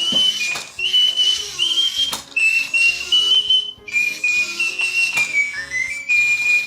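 Little Live Pets toy bird playing its dance song through a small speaker: a high whistled tune over a simple electronic backing melody with a regular beat. The song stops abruptly at the end.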